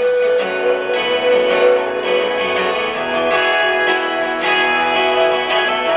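Guitar music with plucked and strummed notes, played through a small portable mini speaker from a USB flash drive.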